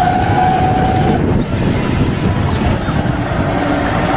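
Heavy truck engine running loudly, with a steady whine over the first second and a lower hum near the end. It is a sound effect that cuts in and out abruptly.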